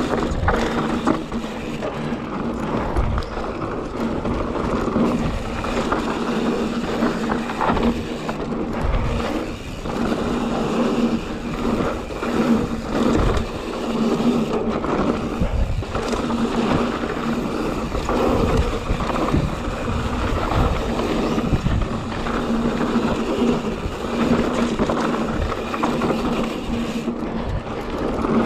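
YT Jeffsy full-suspension mountain bike descending a dry, hard, slippery dirt trail at speed: tyres rolling and scraping over the packed surface, with frequent thumps and rattles as the bike hits bumps.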